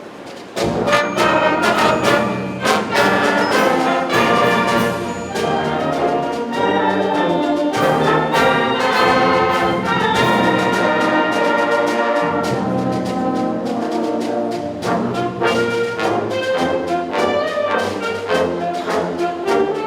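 A wind orchestra, brass to the fore, strikes up loudly about a second in and plays on with sharp accented chords and fast-moving sustained passages.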